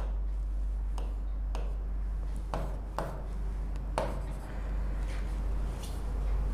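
Pen tip tapping and clicking against a touchscreen whiteboard as numbers are written. There are irregular sharp taps about a second apart, over a steady low hum.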